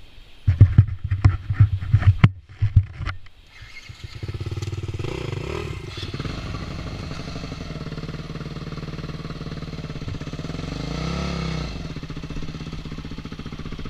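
Yamaha dirt bike engine spluttering in uneven, loud bursts for the first few seconds, then catching and running steadily, with one short rise and fall in revs near the end.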